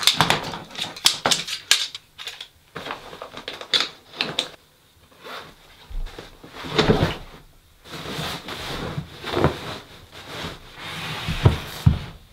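Metal poles of a folding camp cot knocking and clicking together as it is taken apart, then nylon fabric rustling in several short bursts as the pieces are stuffed into a carry bag.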